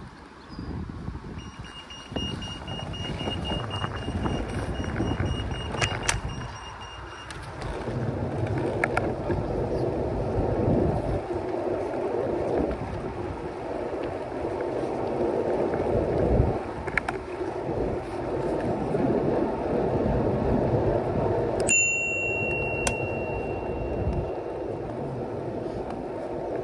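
A bicycle rolling along a path, giving a continuous rumble of tyre and wind noise. A steady high tone sounds for about six seconds in the first part, and about 22 s in a high ringing tone starts sharply and fades away over a few seconds.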